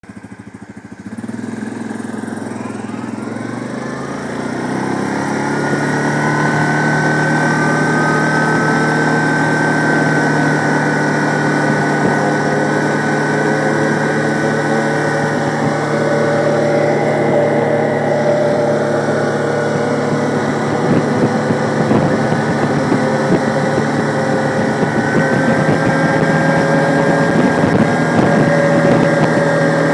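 Quad (ATV) engine picking up speed, its pitch rising over the first few seconds, then running steadily at cruising speed along a paved road.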